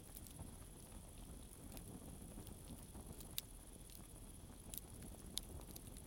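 Wood campfire of split logs burning, with sharp crackles and pops scattered irregularly over a low steady rumble; the loudest pops come about three and a half and five and a half seconds in. A steady high chirring of crickets runs behind.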